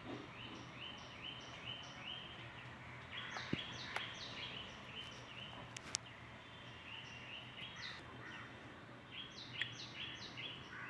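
Runs of short, high-pitched chirping calls from a small animal, three or four notes a second in several groups, with a few faint clicks over a low background hiss.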